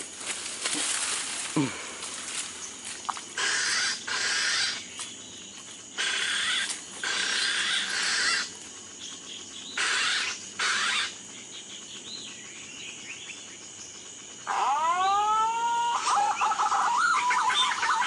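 Several bursts of rustling as someone pushes through leafy undergrowth and mud. Then, about fourteen and a half seconds in, loud animal calls begin: curving notes that bend upward in pitch, followed by a busier run of chattering calls.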